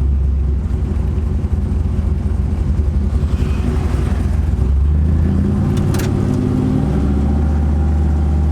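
1991 Chevrolet Camaro's engine and road noise heard from inside the car while driving, the engine note rising as it accelerates in the second half. A single short sharp click about six seconds in.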